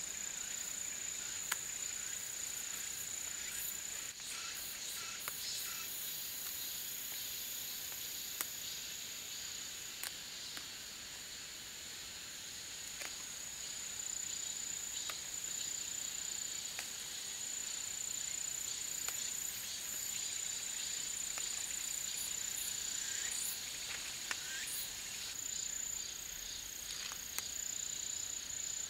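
Outdoor insect chorus: a steady, high-pitched trill that keeps to one pitch and breaks off briefly now and then, with a few faint clicks scattered through it.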